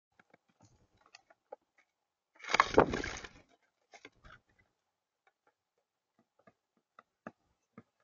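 Mourning dove's wings flapping in one loud, fluttering rush lasting about a second, starting about two and a half seconds in, as a dove takes off from or lands on the feeder platform. Light scattered clicks of beaks pecking seed on the platform run through the rest.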